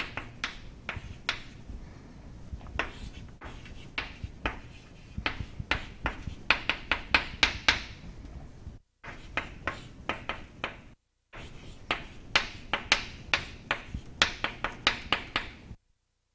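Chalk tapping and scraping on a chalkboard as a formula is written out: a run of short, sharp clicks, quicker and louder in the second half, breaking off briefly twice.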